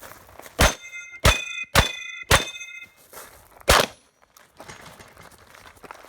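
Shotgun fired five times in quick succession, the last after a short pause. The middle three shots are each followed by the metallic ring of a struck steel target.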